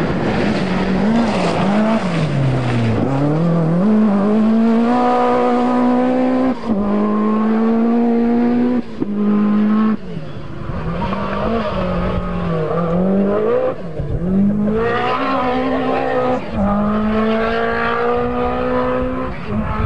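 Lancia Delta S4 Group B rally car's twin-charged four-cylinder engine at full throttle. The engine note climbs through the gears with a sharp drop at each upshift, and in places dips and rises again as the throttle is lifted and reapplied for corners.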